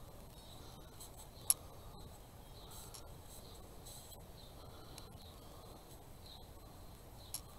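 Faint rubbing and handling sounds of a small wooden frame being worked by hand, with one sharp tap about a second and a half in and a lighter one near the end.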